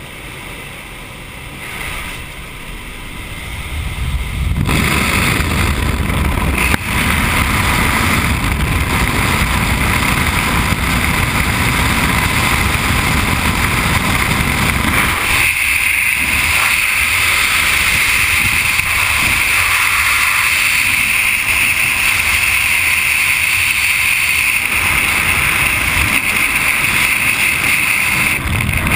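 Wind and engine noise inside a jump plane by its open door, growing much louder about four seconds in. About fifteen seconds in, after the exit, a steady rush of freefall wind over the helmet camera's microphone replaces it.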